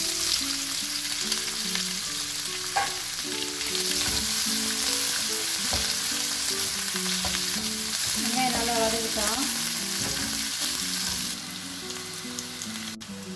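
Sliced onions sizzling as they fry in hot ghee with whole spices in a wok, stirred with a wooden spatula. The sizzle starts abruptly as the onions go into the fat and turns somewhat quieter near the end.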